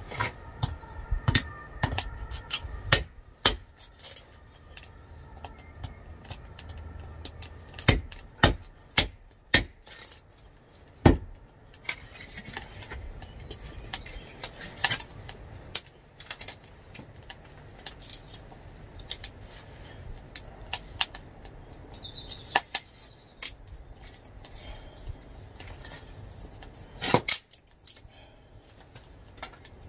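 Irregular sharp knocks and cracks of dry wood being chopped into kindling, loudest in a cluster about eight to eleven seconds in and once more near the end.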